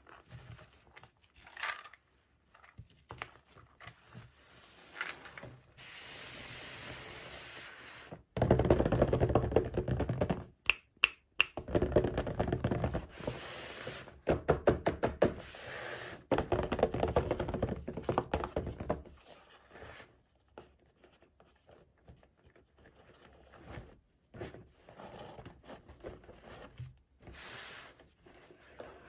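Close handling noises of unboxing toy packaging: scattered taps and knocks, then a stretch of dense crinkling and rustling with small clicks from about 8 to 19 seconds in, then quieter taps again.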